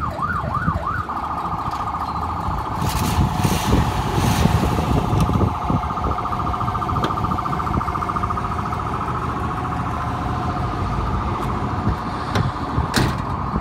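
Electronic siren on a sheriff's patrol car. A rising-and-falling wail switches about a second in to a fast, steady warble, with a low rumble underneath.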